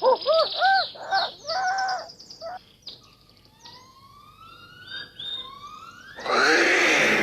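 Cartoon jungle sound effects: a quick run of arched hooting animal calls, about three a second, then a few rising bird whistles. About six seconds in, a much louder, dense sound cuts in and carries on.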